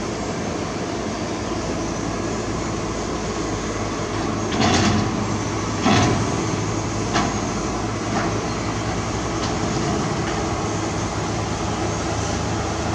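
Heavy diesel construction machinery running steadily, with a few sharp metallic clanks and knocks near the middle, the loudest two about a second apart.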